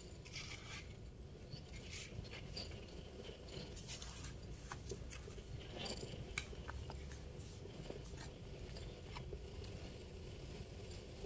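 Potting soil being sprinkled thinly into a pot: faint scattered rustling with small clicks and ticks.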